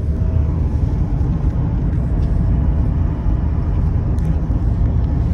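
Steady low rumble of road and engine noise inside a moving car's cabin, with no voices.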